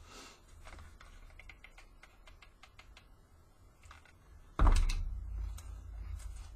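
Ribbon rustling and small faint clicks as ribbon loops are handled and pressed, then about four and a half seconds in a hot glue gun is set down on the craft table with a sudden loud thump and a low rumble that fades.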